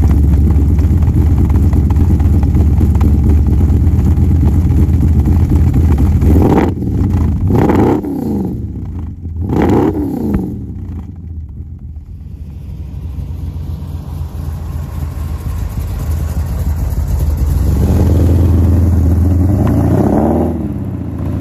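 A 1968 Dodge Charger's 502-cubic-inch V8, a 440 bored and stroked, running through its dual exhausts with a loud, deep note. Between about six and ten seconds in it is revved three times, each rev rising and falling. After a quieter stretch, the car drives by under power, its engine note swelling to a peak and then rising and falling near the end.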